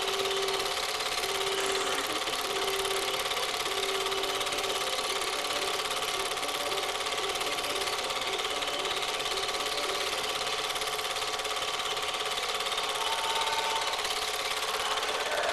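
Super 8 film projector running: a steady mechanical whirr from the projector's motor and film transport, recorded onto the film's soundtrack.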